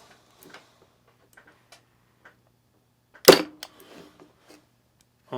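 Parkside PET25C3 corded electric staple gun firing one staple into wood: a single sharp snap about three seconds in, followed by a few light clicks. It is set to low power, and the staple only goes partly in.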